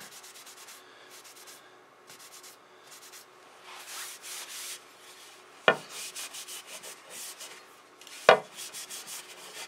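Oily cloth rag rubbing along a wooden hatchet handle in repeated soft wiping strokes, working boiled linseed oil into the wood. Two sharp knocks, about two and a half seconds apart in the second half, are the loudest sounds.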